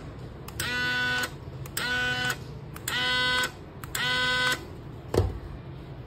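Small DC motor resting on the controller's case, buzzing the case in four short bursts of about half a second each, its pitch rising briefly at each start as it spins up. The motor runs only while the remote's button is held, in momentary mode. A single knock comes near the end.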